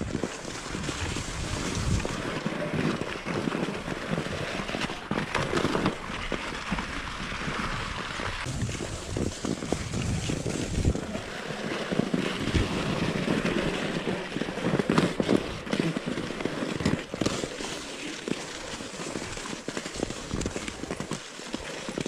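Steady crunching and scraping of travel over crusty snow, dense with small crackles, with wind rumbling on the microphone.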